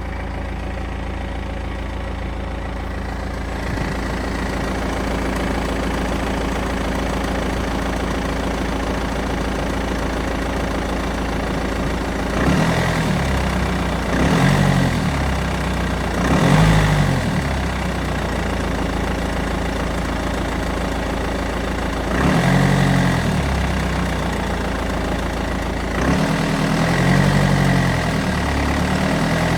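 BMW 320d's M47N2 four-cylinder common-rail diesel idling, then revved briefly several times from about twelve seconds in. The owner hears a knock from the oil sump area in it.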